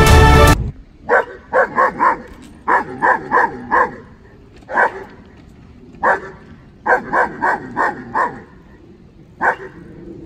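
Music cuts off about half a second in, then a young German Shepherd barks over and over in short volleys of one to six barks. This is reactive barking at people passing by.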